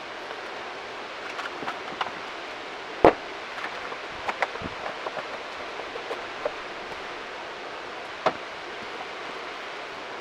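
Scattered light clicks and knocks from tools and parts being handled, over a steady hiss, with one sharper knock about three seconds in and another near the end.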